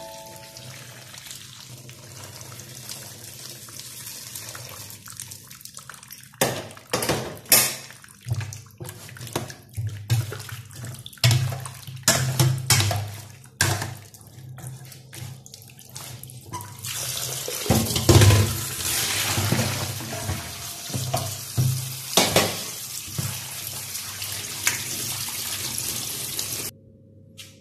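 Water splashing in a stainless steel sink: hot water is poured over chicken feet in a metal bowl, then a utensil clinks and scrapes against the bowl many times, and for the last stretch a tap runs steadily before the sound cuts off suddenly near the end.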